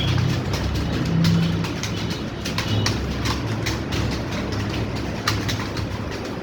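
Many computer keyboards clattering at once as several typists key in fast, the keystrokes overlapping into a dense, uneven rattle over a steady low hum.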